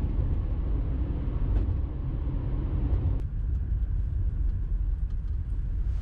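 Car driving, with a steady low rumble of road and engine noise heard inside the cabin. About three seconds in, the higher part of the rumble drops away and a lower rumble goes on.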